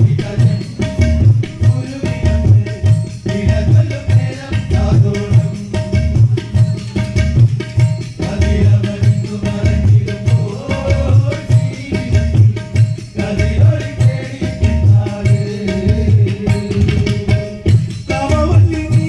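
Live devotional bhajan ensemble playing an instrumental passage: hand drums and a clay-pot ghatam beat a steady rhythm under a violin melody and a held drone note.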